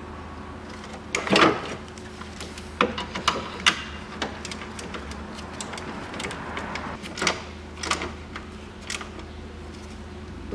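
Tools and metal parts knocking and clinking every now and then, over a steady low hum.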